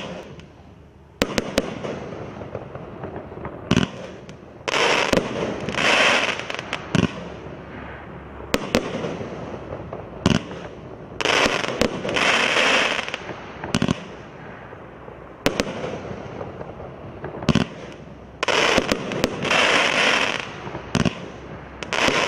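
Mandarin Fireworks Dragon & Phoenix 500 g consumer cake firing its shots in quick succession: sharp reports and bursts, with several longer crackling stretches lasting a second or two.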